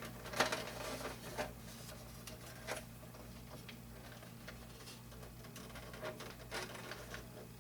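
Scattered light clicks and taps of small hard objects being handled on a workbench, over a steady low electrical hum.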